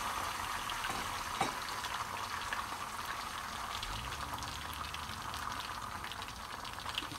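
Beaten eggs frying in a frying pan: a steady light sizzle with fine crackles.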